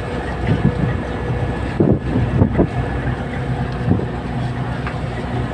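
Fishing boat's engine running steadily with a low drone, with a few dull thumps about two seconds in.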